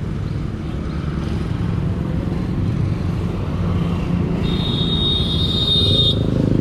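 Motorcycle engines idling steadily, growing slightly louder. A thin high-pitched tone sounds for nearly two seconds in the second half.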